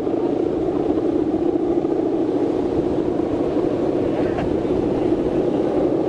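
The bow hummer (guangan) on a big Balinese bebean kite droning in strong wind: a steady, loud, buzzing drone with a fast flutter, over low wind rumble.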